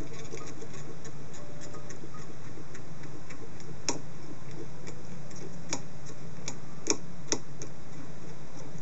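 Light, irregular clicking and ticking of thread being wrapped onto a fly hook held in a tying vise, with a few sharper clicks in the second half. A low steady hum runs underneath.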